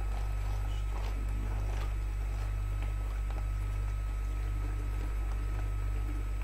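Water swirling down in a vortex from one large bottle into another through a homemade connector of two glued-together caps, faint under a steady low hum.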